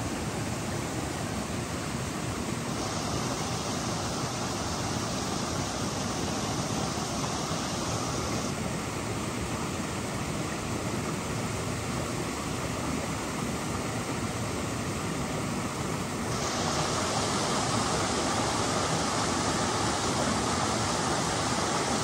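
Steady rush of water at a waterfall, an even hiss-like roar that gets a little louder about 16 seconds in.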